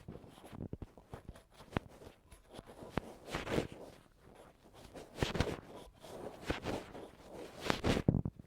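Ear pick scratching and scraping in irregular strokes, with a few sharp clicks.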